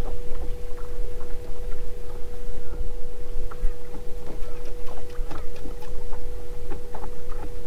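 Small fishing boat with a steady, even-pitched motor whine, typical of an electric bow-mount trolling motor, over a loud low rumble of wind and water. Small clicks and taps come and go.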